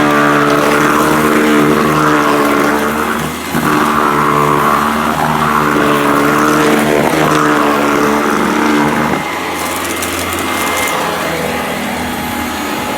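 Sanitaire SC899E upright vacuum cleaner running with a steady motor whine, which dips briefly about three and a half seconds in. About nine seconds in, the whine drops away into a lower, quieter, noisier sound.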